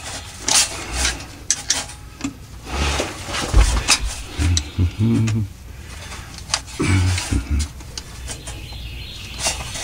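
Irregular metallic clicks and scrapes of a hooked pry tool catching and slipping on the old rear transmission (extension housing) seal of a Toyota Tundra as it is worked to pull the seal out, with a few short grunts.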